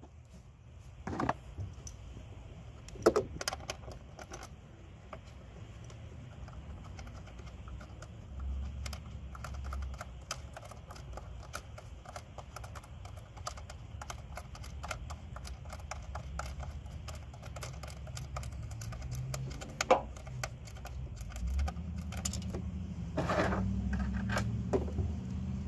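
Light clicking and rattling of hand tools and plastic parts on top of an engine as an ignition coil pack is unbolted and pulled and a socket is worked into the plug well, with quick runs of clicks like a ratchet and a few louder knocks.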